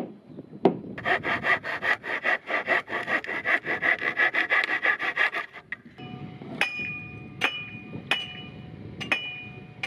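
A mallet knocks a timber beam twice, then a handsaw cuts through a wooden board with quick, even back-and-forth strokes for about five seconds. Near the end come four ringing hammer blows on nails.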